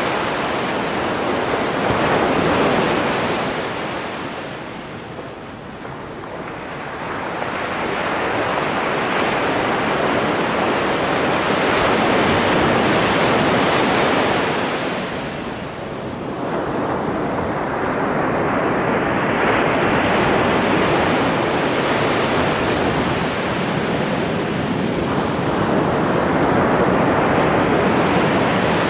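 Ocean surf breaking and washing up a sandy beach: a continuous rushing roar of waves that fades briefly about five seconds in and again just past the middle, then swells back.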